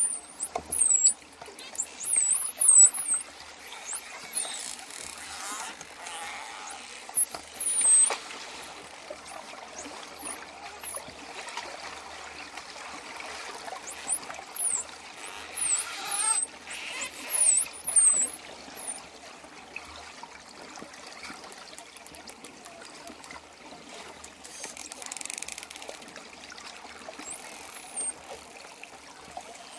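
Dolphins whistling: clusters of short, very high-pitched whistles that mostly sweep downward, coming in bursts through the first two-thirds and then stopping. Underneath is a steady wash of moving water with louder swells.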